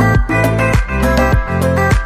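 Background music with a steady beat, a kick-like stroke roughly every 0.6 seconds under sustained pitched notes.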